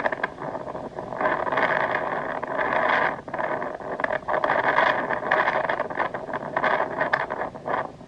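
Strong gusty wind, a rushing noise that swells and dips as the gusts come and go.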